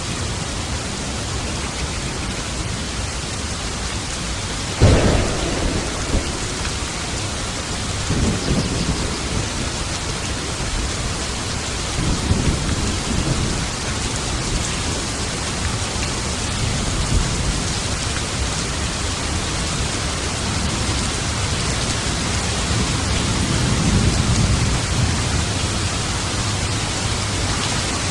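Thunderstorm: steady rain with a sharp thunderclap about five seconds in, followed by several low rolling rumbles of thunder.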